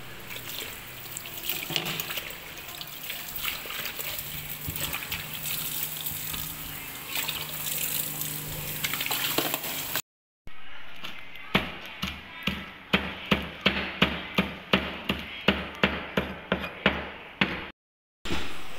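A tap running into a steel sink while leafy greens are swished and rinsed in a plastic colander. After a cut, a cleaver chops steadily on a wooden cutting board, about two to three strikes a second.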